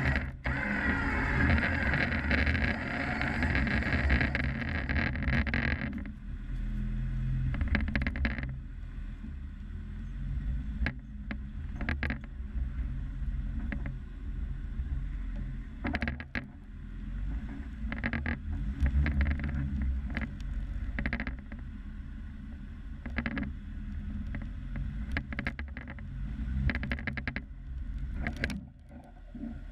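Jeep engine running at low revs while crawling a rocky trail, a steady low hum with scattered sharp knocks. A louder rushing noise fills the first six seconds, then drops away.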